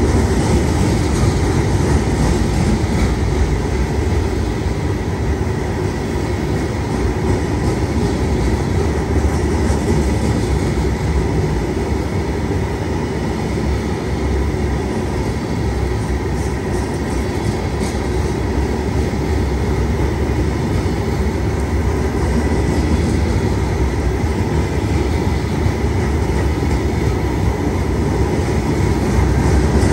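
Loaded stone hopper cars of a long freight train rolling past, a steady loud rumble of steel wheels on rail, with a faint steady high whine above it.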